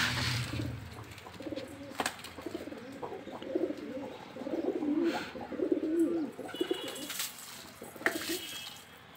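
Domestic pigeons cooing, several overlapping low, warbling coos through the middle few seconds, with a few sharp clicks.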